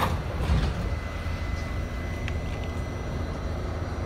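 R68A subway car's sliding doors knock shut, then the train pulls away with a steady low rumble heard from inside the car.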